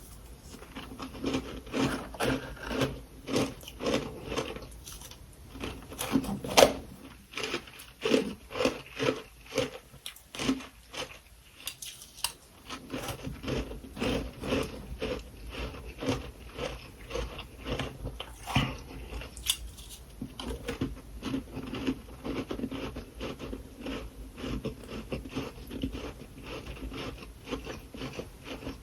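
A person biting and chewing freezer frost, a fast run of crunches a few times a second, with a short lull about ten seconds in before the crunching resumes.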